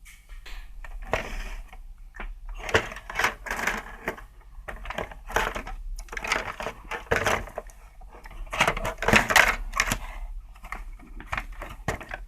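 Loose radio parts being handled and sorted: irregular clicks, clinks and rattles of small hard plastic and metal pieces, in several clusters.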